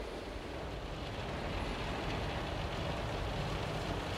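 Drive-through car wash heard muffled from inside the car's cabin: steady rushing of water spraying over the body and windshield, with a low rumble underneath, growing slightly louder.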